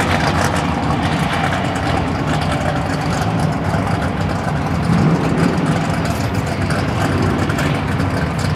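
Twin-turbo pro mod Camaro's race engine idling as the car rolls up to the starting line, a steady, deep, loud idle.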